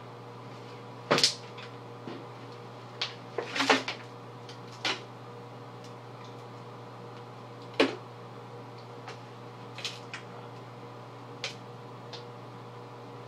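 Scattered short clicks and light knocks from handling foil pie tins and shaving cream, the loudest about a second in and a cluster near four seconds, over a steady low electrical hum.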